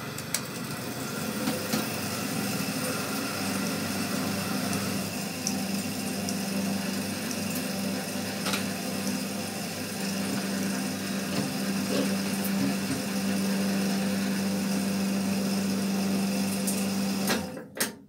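Ceiling fan winding machine running steadily with a hum as it winds copper wire onto a fan stator, then stopping abruptly near the end.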